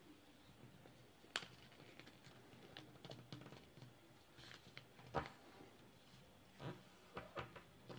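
Faint rustling and crinkling of a strip of origami paper being folded and pressed flat by hand on a tabletop, with a few sharper paper clicks and taps spread through.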